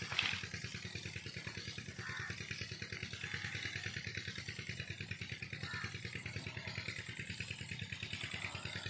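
A small engine running steadily at idle, with a rapid, even beat. A brief rustle comes just after the start, as a hand moves through the water hyacinth leaves.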